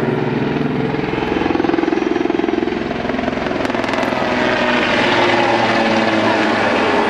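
Aérospatiale Super Puma helicopter flying close past, its turbine engines and four-blade main rotor making a steady, fast chop.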